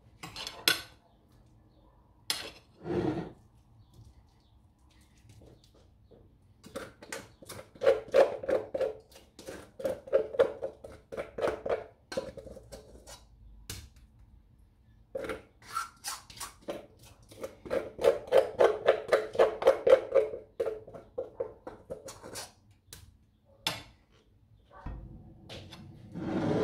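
Kitchen utensils knocking and scraping on cookware: scattered single knocks and two longer runs of quick, rhythmic strokes, about four or five a second.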